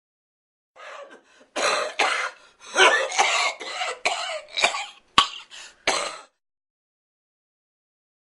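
A person coughing and choking: a fit of coughs and throat-clearing hacks that starts about a second in and lasts about five seconds, ending with a few short, sharp coughs.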